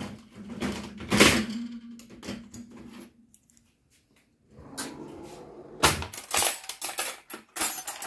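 Stainless-steel forks and knives clinking as they are lifted out of a dishwasher's cutlery basket, then a kitchen drawer sliding open and the cutlery dropped into the drawer's tray in a quick run of clinks near the end.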